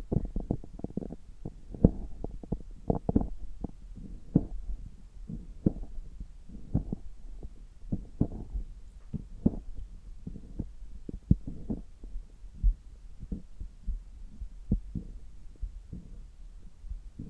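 Bowel sounds picked up through a stethoscope on the belly: irregular gurgles and short pops over a steady low rumble.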